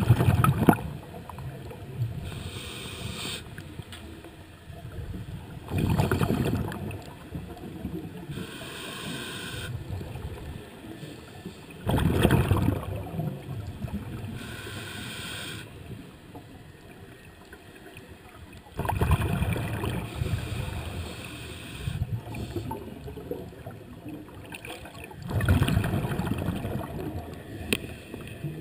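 Scuba diver breathing through a regulator underwater: a hiss on each inhale, then a gurgling rush of exhaled bubbles. The rush comes about every six seconds, five times.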